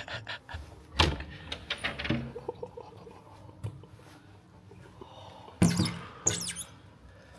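Knocks, scuffs and scraping of a person squeezing through a narrow window gap, with a sharp thud about a second in and a burst of high squeaking and scraping against the frame about five and a half seconds in.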